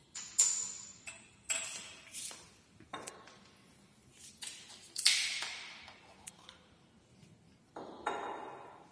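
Laboratory glassware clinking: about five sharp, ringing knocks as a glass conical flask is unstoppered and a reagent bottle is opened and set down, the loudest about five seconds in.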